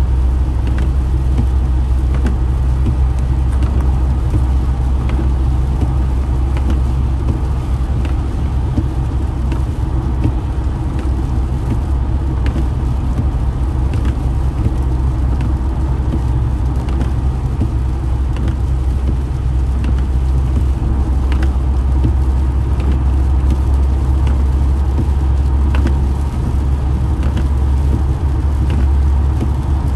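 Steady low road and tyre rumble inside a car cabin driving on a wet highway, with scattered light ticks.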